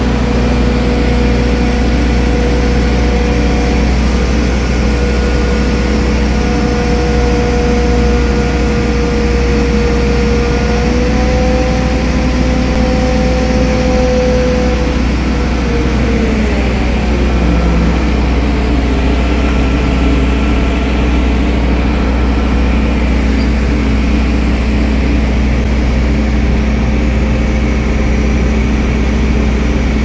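Kato 20-ton mobile crane's engine running steadily with a deep drone and a thin whine that slides lower in pitch about halfway through.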